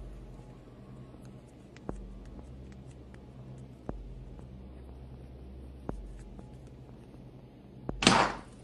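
Paper banknotes flicked through by hand as they are counted, soft papery ticks, over a low thud that comes about every two seconds. Near the end, a loud, short splash of water at the sink.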